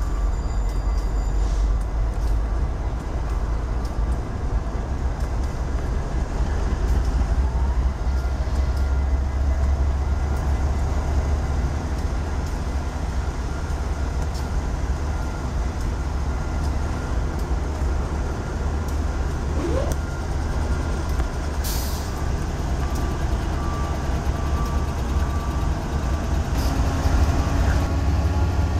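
Diesel-electric freight locomotives idling in a rail yard: a steady, deep engine rumble. A short rising squeal comes about twenty seconds in.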